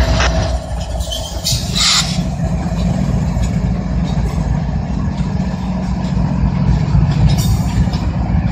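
Diesel-electric freight locomotives passing close by, the GE ES44AC Norfolk & Western heritage unit 8103 leading: a loud, steady, deep engine rumble with wheels on rail, and two brief high-pitched squeals about one and two seconds in.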